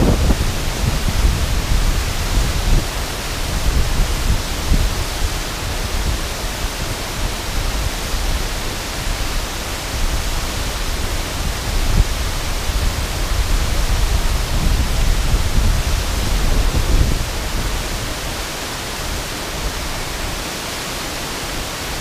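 Water pouring over the low spillway of Stroudwater Falls onto rocks: a steady rushing noise with an uneven low rumble underneath, which eases off in the last few seconds.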